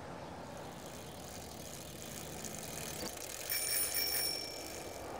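A bicycle bell rung briefly a little past the middle, a bright ring with several high tones that fades within about a second, over a steady low rushing noise.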